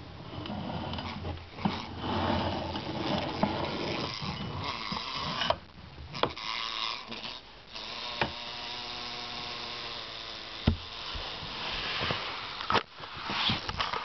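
Wasp buzzing close by, uneven and changing in strength, with a steadier pitched buzz about eight seconds in. Several sharp clicks and knocks cut through it.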